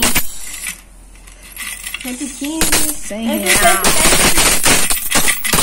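Coins clattering as they are shaken and poured out of a coin bank onto a pile. The clatter eases off about a second in and comes back dense from about two and a half seconds.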